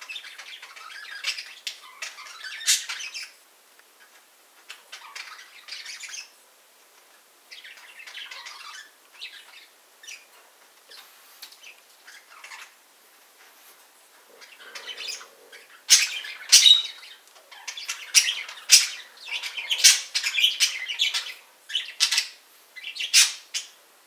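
Pet budgerigars chattering in bursts, with louder sharp squawks coming thick and fast over the last third.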